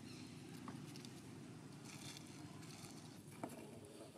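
Faint outdoor background: a low steady rumble with light rustles and ticks of dry leaves as macaques move on the ground, and one sharp click about three and a half seconds in.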